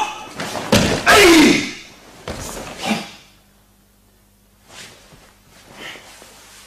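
A karateka's loud kiai shout, its pitch falling, about a second in, with sharp slaps and thuds of body contact and bare feet on the mat around it during the kumite exchange.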